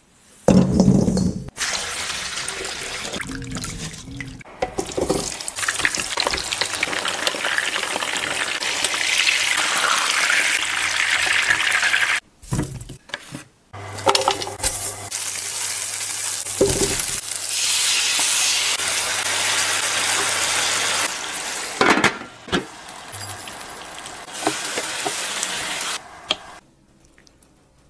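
A run of cooking sounds: small potatoes knocking into a stainless-steel bowl at the start, then long stretches of steady hissing from oil sizzling in a pan, broken by short gaps where the clips change.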